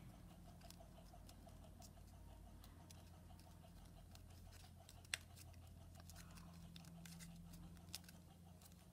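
Faint rustling and crinkling of origami paper being folded and pressed by hand, with a sharp crackle about five seconds in and a smaller one near the end, over a low steady hum.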